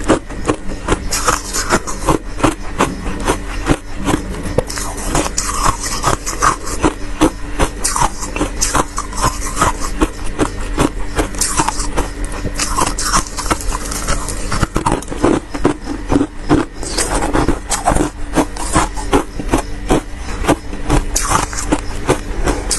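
Frost being scraped and chipped off the inside of a freezer: a dense, continuous run of rapid scraping and crunching strokes over a steady low hum.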